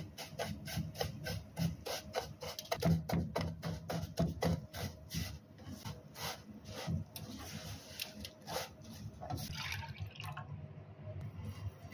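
Dry seviyan (vermicelli) being stirred and roasted in ghee in a pan with a spatula: a rapid run of crisp crackles, clicks and scrapes that thins out after about seven seconds. This is the roasting stage, in which the vermicelli is turned until light brown.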